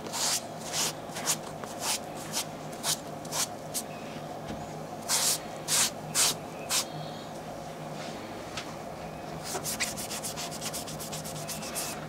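A small scrubbing pad rubbed back and forth over a sneaker's rubber sole and edge to clean it: short scratchy strokes about two a second, quickening into rapid close strokes near the end.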